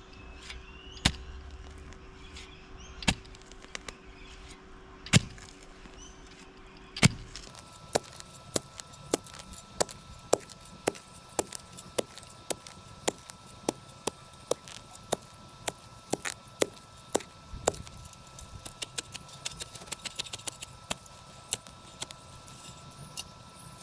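Sharpened shovel blade chopping down into soil and grass roots to cut a garden-bed edge: sharp strikes a couple of seconds apart at first, then after an abrupt change in the background, regular strikes about twice a second, coming quicker near the end.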